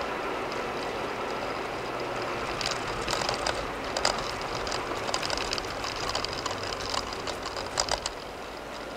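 Tyre and road noise of a car at highway speed on concrete pavement, heard from inside the car. From about two and a half seconds in there is a run of irregular knocks and rattles. Near the end the noise drops and turns smoother as the car moves onto asphalt.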